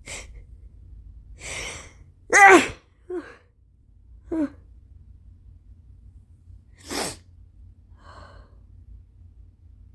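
A woman sneezing from allergies: a breath in, a loud voiced sneeze about two and a half seconds in, a couple of short vocal sounds, then a second, breathier sneeze about seven seconds in.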